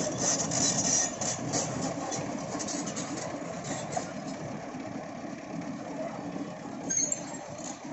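Heavy excavator's diesel engine running steadily, with a rapid high clatter in the first three seconds and a brief sharp high sound about seven seconds in.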